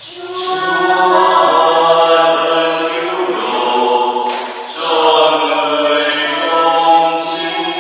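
Unaccompanied liturgical chant, sung in long held notes, with a brief pause for breath a little past halfway.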